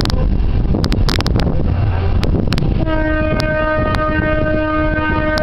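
Train running across a steel trestle viaduct, a steady low rumble with scattered sharp clicks, then its horn sounds one long steady blast from about three seconds in.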